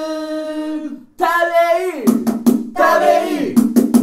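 Football supporters' player chant: a voice holds a long sung note on the player's name, then sings short phrases, with sharp handclaps between them from about two seconds in.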